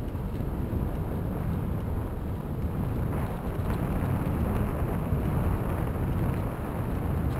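Steady low rumble of wind buffeting a bike-mounted camera's microphone, mixed with bicycle tyres rolling over a gravel trail covered in fallen leaves.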